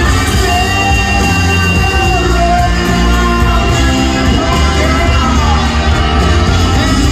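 Live rock band with a brass section playing an instrumental break, a trombone leading with sliding lines over trumpets, acoustic and electric guitars and drums.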